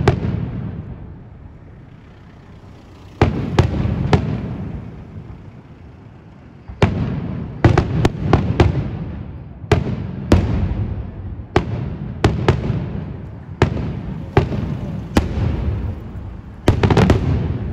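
Aerial firework shells bursting overhead. Each bang is sharp and trails off in a low, rolling echo. A few shells go off in the first seconds; from about seven seconds in the bursts come every second or so, with a quick cluster near the end.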